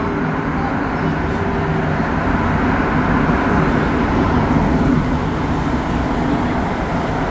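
Inside a rubber-tyred AZUR Montreal Metro train running through a tunnel: a steady rumble of tyres and running gear with a faint hum, as the train comes into a station near the end.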